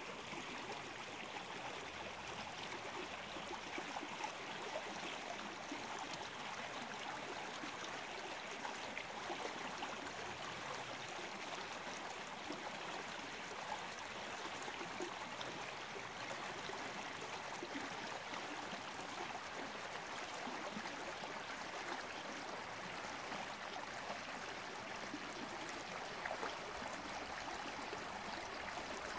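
Small, shallow creek running steadily over a stony riffle, an even babble of flowing water.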